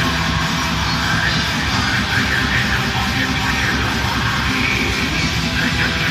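Live heavy metal band playing loud: distorted electric guitars over bass and drums in a dense, steady wall of sound.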